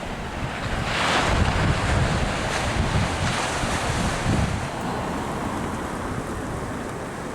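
Pacific surf breaking and washing up the beach, swelling about a second in and slowly fading, with wind buffeting the microphone in low gusts.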